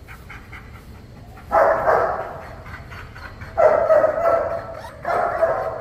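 A large protection dog barking: three loud barks about two seconds apart, each trailing off in the echo of a large room.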